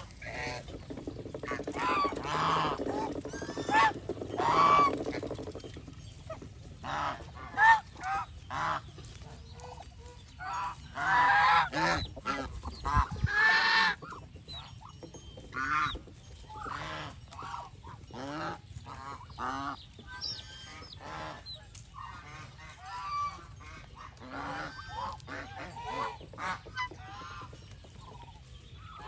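A flock of domestic geese honking, many calls overlapping, with louder spells of calling a few seconds in and again around the middle.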